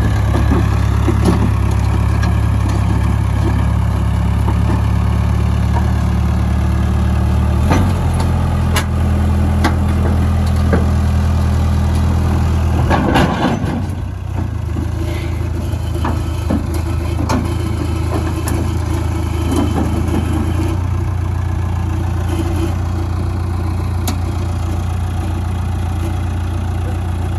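Case crawler dozer's diesel engine running as the dozer drives up the ramps onto a flatbed trailer, the engine note shifting about 8 s and again about 13 s in. Occasional metallic clanks from the steel tracks and ramps.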